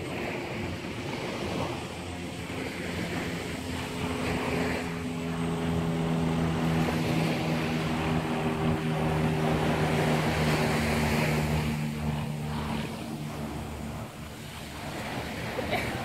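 A passing motor's steady drone grows louder and fades away again, over the wash of surf and wind on the microphone.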